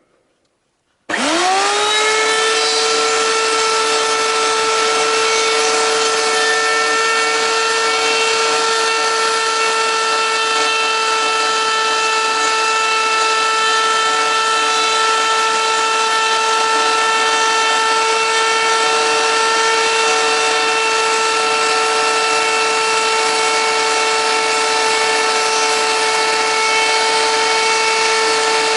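Router switched on about a second in, its whine rising quickly to full speed, then running steadily at a constant pitch as it makes a shallow pass cutting a pattern into a wooden blank.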